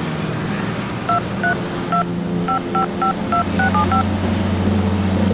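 Cell phone keypad touch-tone (DTMF) beeps as a phone number is dialed: about ten short beeps in quick succession, starting about a second in and lasting about three seconds.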